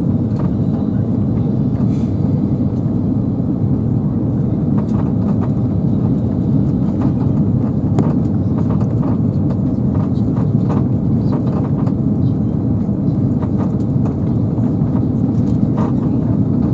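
Steady, heavily distorted roar of an Airbus A330-300 cabin on final approach, engine and airflow noise heard from a window seat behind the wing, with a few faint clicks scattered through it.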